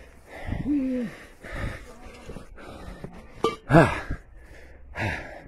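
A man breathing hard and gasping while running, with a couple of short voiced cries, the loudest a little under four seconds in.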